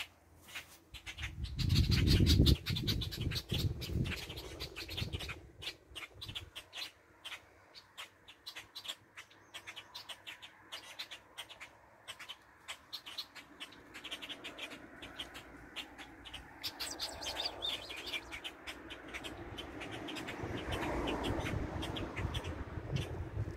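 Birds chirping and calling by a lake, with a low rumble on the microphone about two seconds in.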